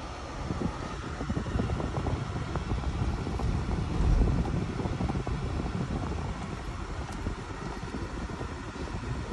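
Cadillac's in-cabin driving noise: a steady low rumble of engine and tyres under a hiss, a little louder about four seconds in.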